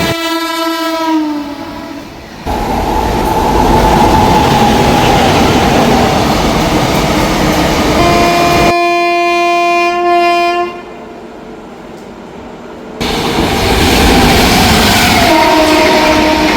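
Trains passing at speed, a dense rumble of wheels on track, with railway locomotive horn blasts. The first horn falls in pitch as it passes in the first second, a long steady horn sounds for about two and a half seconds past the middle, and another horn begins near the end.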